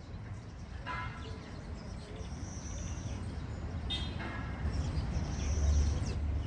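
Outdoor park ambience: a steady low rumble, louder near the end, with two short bird chirps, about a second in and about four seconds in, and a high thin buzz twice.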